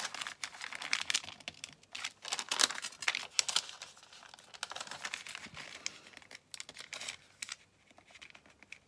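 A sheet of paper rustling and crinkling as it is folded in half and creased by hand. The rustling is busy in the first half and sparser and quieter toward the end.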